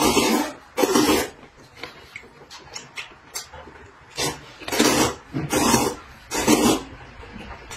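A person loudly slurping rice noodles from a cup with chopsticks: about six short slurps, two near the start and four more close together from about four seconds in, with smaller mouth noises between.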